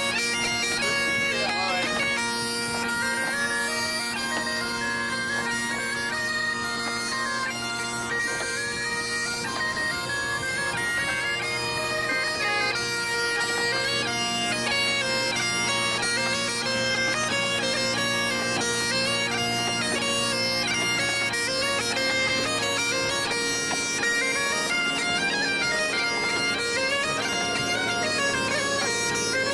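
Breton biniou braz bagpipe and bombarde playing a tune together: a steady drone under a continuously moving melody.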